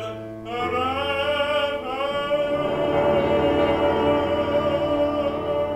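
A male classical singer sings in operatic style with wide vibrato, accompanied by a grand piano. After a brief breath he comes back in, slides upward and holds a long sustained note.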